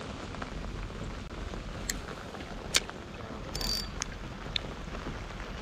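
Steady hiss of rain falling, with a handful of sharp clicks from a spinning reel being handled, the loudest nearly three seconds in.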